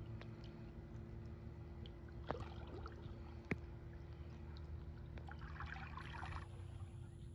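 Faint lapping of pool water in an above-ground pool as a person moves in it, over a low steady hum, with a couple of sharp clicks and a short patch of splashing near the end.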